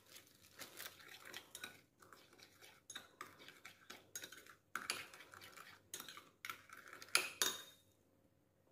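A metal spoon stirring wet chili seasoning sauce in a bowl, with repeated clinks and scrapes against the bowl. The stirring stops near the end.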